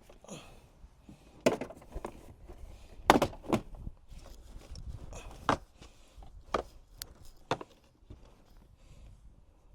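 Scattered knocks, clunks and clicks of hands and tools working at the vehicle's interior trim panels, about eight sharp hits with the loudest a little after three seconds in.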